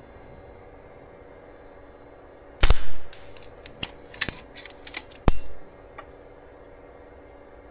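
Karma Airguns SLS .25 calibre pre-charged pneumatic air rifle firing a shot: a sharp crack about two and a half seconds in, then several lighter clicks and a second loud crack about five seconds in.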